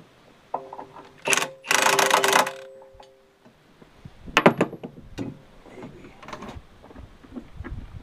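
Metalwork on the chipper's shaft and bearing housing: a short, loud rattling burst about a second and a half in, then a few sharp metallic clanks with a ringing, and lighter knocks after.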